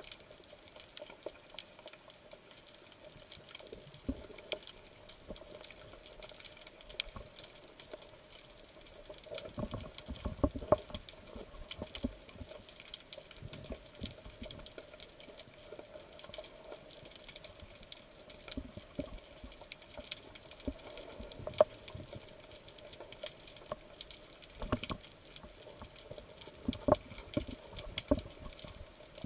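Underwater ambience: a dense, steady crackle of tiny clicks, with a few low thumps around ten seconds in.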